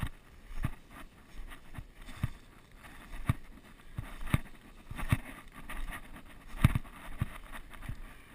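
Footsteps through brush and leaf litter: a dull step roughly every second, with rustling of grass and branches in between.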